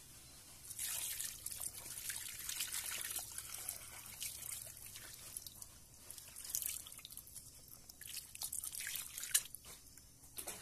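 Water splashing and dripping over raw torpedo scad being cleaned by hand, in irregular wet bursts with a few sharper splashes near the middle and toward the end.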